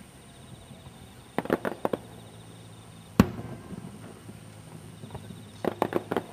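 Aerial fireworks bursting: a quick run of sharp cracks about a second and a half in, one loud single bang with an echoing tail about three seconds in, and another quick run of cracks near the end.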